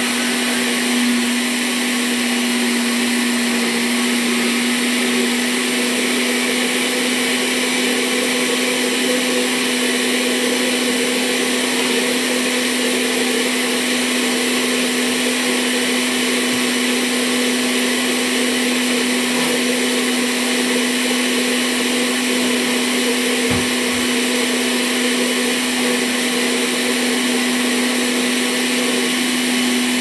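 Electric countertop blender running steadily, beating an egg batter as oil is drizzled in: an even motor hum with a whirring hiss.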